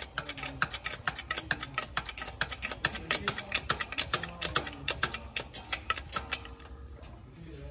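Rapid metallic clicking of a ratchet wrench worked in short quick strokes at the base of a hydraulic bottle jack. It stops about six and a half seconds in.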